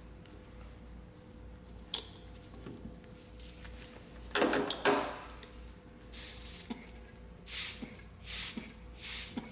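Handling noise of a neonatal intubation on a manikin, with a click early on and a loud rustle midway, then a regular run of short air hisses, about one a second, as a resuscitation bag pushes air through the endotracheal tube into the neonatal manikin's lungs.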